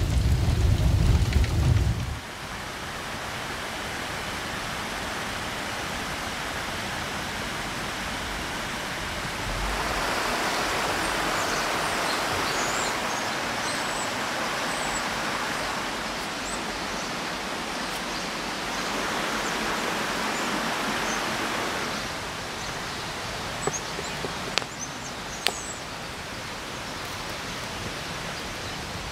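Steady rush of a river flowing, louder through the middle stretch, with a few high bird chirps above it. Near the end come a few sharp clicks. The first two seconds hold the end of a loud, bass-heavy music sting.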